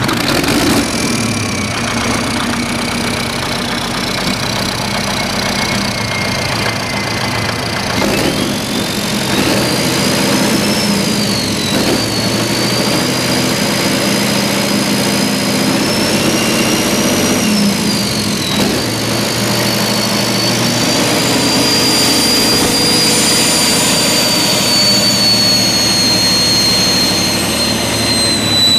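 Caterpillar D343 turbocharged inline-six diesel engine running just after a cold start, with a high turbocharger whine over the engine note. The whine climbs about eight seconds in, rises and dips a couple of times as the engine speed changes, and falls away near the end.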